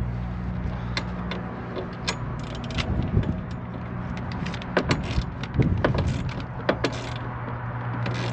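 Scattered light metallic clicks and knocks of hand tools and small metal parts being handled, over a steady low hum.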